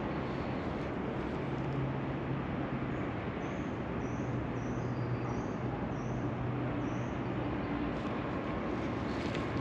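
Steady outdoor background rumble with a low hum, like distant traffic, and a run of about six short, faint high chirps in the middle.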